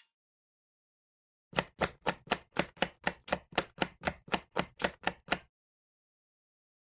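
Kitchen knife chopping food with about sixteen quick, even strokes, roughly four a second. It starts about a second and a half in and stops abruptly.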